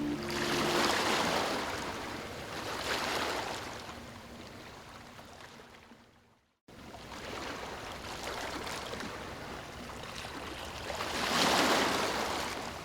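Ocean waves washing onto a shore, with surges about a second in, around three seconds in and near the end. The sound fades out to a moment of complete silence about halfway through, then comes back in.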